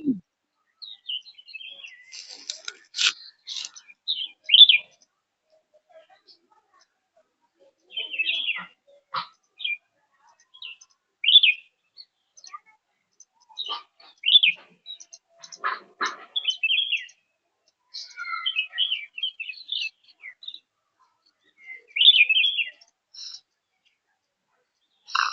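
Birds chirping in short scattered calls every second or two, with pauses between, and a couple of brief knocks.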